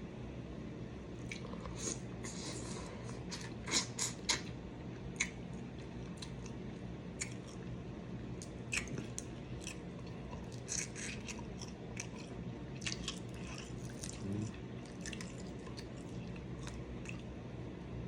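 Close-miked eating of a seafood boil: wet chewing and lip-smacking, with many short, irregular smacks and clicks of the mouth.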